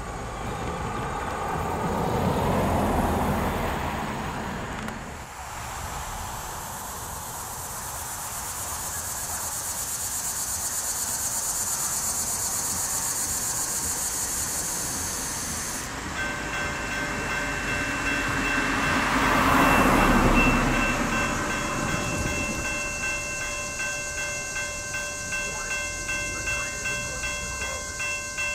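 Railroad crossing warning bell starting to ring a little past halfway, a steady clanging that pulses about twice a second. Before it there is a steady high hiss, and vehicles pass twice, once near the start and once just after the bell begins.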